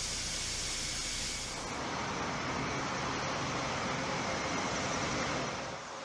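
Airbus A400M's Europrop TP400 turboprop engines running as the aircraft taxis: a steady rushing, hissing engine and propeller noise with a low hum underneath. The sound shifts about two seconds in and drops a little near the end.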